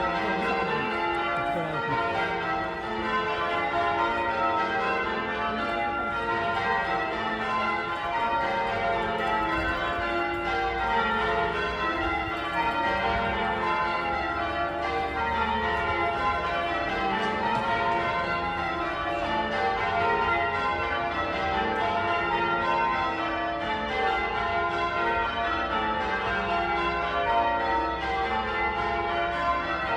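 Wakefield Cathedral's ring of church bells change ringing: the bells strike one after another in quick, even succession, their tones overlapping and ringing on continuously.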